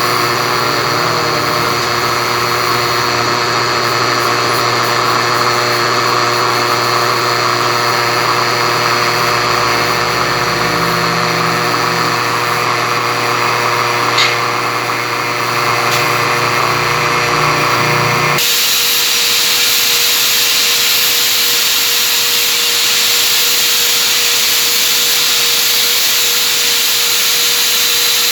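A power tool running steadily; about eighteen seconds in its sound changes abruptly to a higher hiss.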